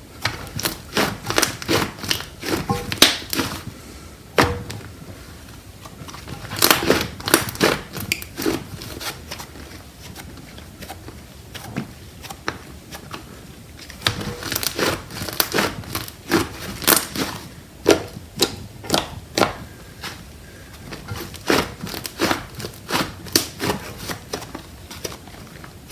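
Handmade slime being squished and stretched by hand, giving bursts of sharp sticky clicks and pops, with short quieter pauses between handfuls.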